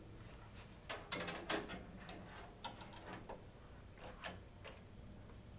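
Clicks and light knocks of an NVIDIA Quadro graphics card being handled and pushed into a PCIe slot on a metal carrier: a cluster of clicks about a second in, then scattered single clicks.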